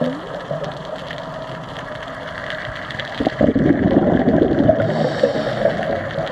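Underwater sound on a scuba dive: a diver's exhaled bubbles gurgling from the regulator, with a louder rush of bubbles from about three seconds in.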